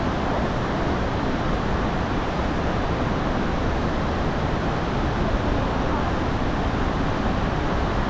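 Steady rushing of Snoqualmie Falls and the river rapids below it, an even wall of water noise with no change in level.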